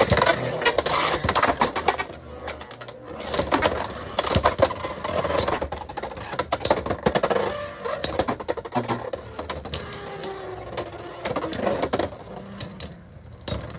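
Two Beyblade X tops, Scorpio Spear 9-60 Gear Point and Phoenix Wing 7-60 Rush, spinning in a plastic stadium, clashing with rapid sharp clacks and rattles over a spinning whir. The whir falls in pitch as the tops slow, and the clatter thins out near the end.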